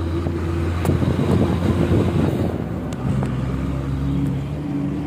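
Bus engine running under way, heard from inside the cabin as a steady low drone with rattling from the body. The engine note shifts a little lower about three seconds in.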